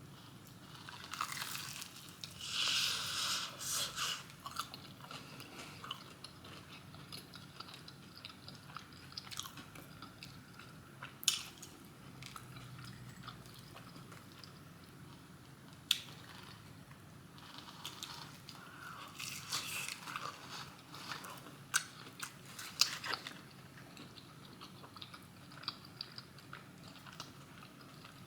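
Close-up eating sounds: crunchy bites into breaded fried chicken tenders and fries, then chewing. The loudest crunching comes a couple of seconds in and again about two-thirds of the way through, with a few sharp clicks between.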